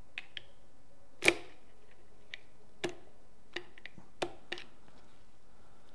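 Sharp metal clicks and clacks, about eight at irregular intervals and the loudest about a second in, from the gears and shift forks of a 1958 VW split-case gearbox being shifted by hand and with a screwdriver.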